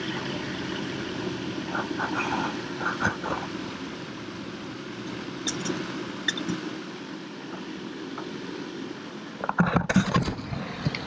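A steady motor hum with a few light knocks, then a loud burst of clattering knocks about nine and a half seconds in.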